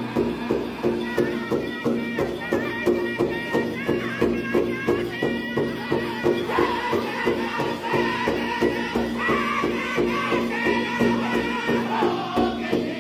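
Powwow drum group of men singing together while beating a large shared hand drum in a steady unison rhythm of about two strokes a second.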